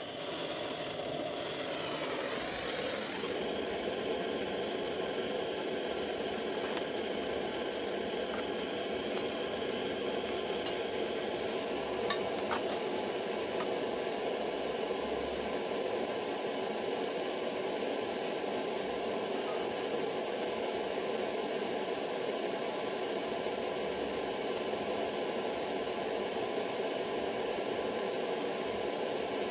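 Gas blowtorch on a canister burning with a steady hiss of its flame, with one faint click about twelve seconds in.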